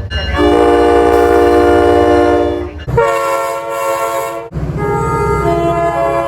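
Train horns sounding multi-note chords, in edited-together clips. One long blast is followed by an abrupt cut to a different horn about three seconds in, then another cut to a third horn about a second and a half later, sounding over a low rumble.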